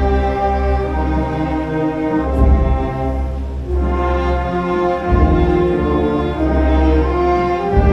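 Slow orchestral music with brass, held chords that change every second or two.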